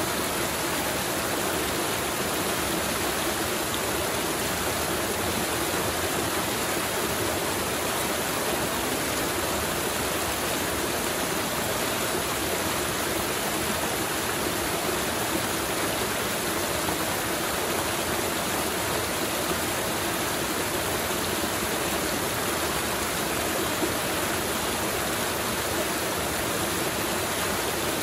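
Mountain river flowing: a steady, unbroken rush of water.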